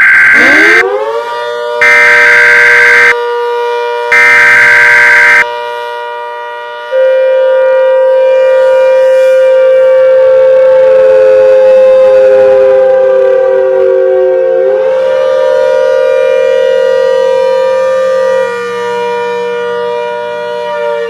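Three loud screeching bursts of EAS digital header tones, about a second each, in the first five seconds. Under them a civil defense siren winds up about a second in and holds a steady multi-tone wail; its lower tones sag and recover about fourteen seconds in.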